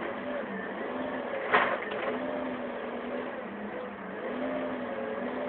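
Forklift engine running, its pitch rising and falling as it drives. There is one sharp pop about one and a half seconds in, a bubble-wrap bubble bursting, with a fainter one just after.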